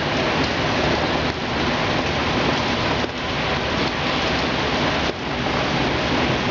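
Heavy hurricane rain pouring down in a steady rush, dipping briefly a few times.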